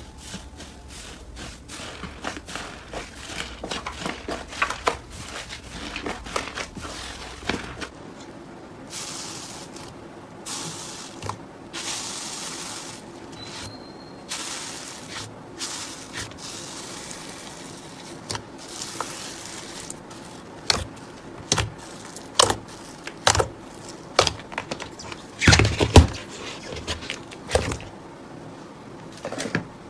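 Slime being squeezed and stretched by hand: a dense run of sticky crackling clicks, then softer hissing stretches, and a series of sharp pops of air pockets near the end.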